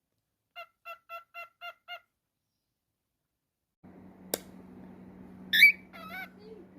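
Cockatiel whistling six short notes on one pitch, evenly spaced at about four a second. After a pause there is a sharp click, then a loud high chirp and a short warbling call.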